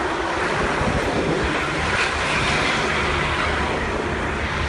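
Steady road noise of a convoy of large buses driving along a highway: an even rumble and rush of engines and tyres.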